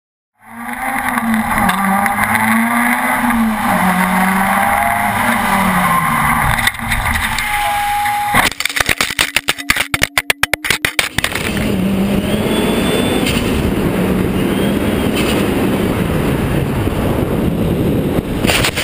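Onboard sound of a hill-climb race car's engine revving hard at speed, with a short squeal just before the car leaves the road. It then crashes, with a rapid run of loud bangs and crunches for about three seconds as the car tumbles. After that comes a steady rushing noise with a faint engine hum.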